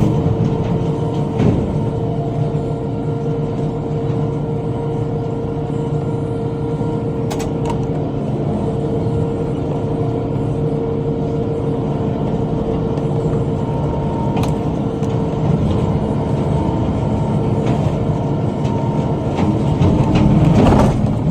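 Tractor engine running steadily under load while bush hogging with a rotary cutter, with a few brief sharp clicks or knocks scattered through and a slight rise near the end.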